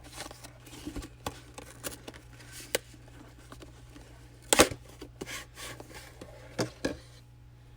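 Hands handling a camera's retail box and packaging: scattered light clicks and rustles, with a sharp knock about four and a half seconds in and a smaller one near the end.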